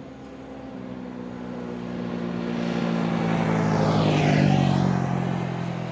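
A motor vehicle passing by on the road: its engine grows louder to a peak about four and a half seconds in, then fades as it moves away.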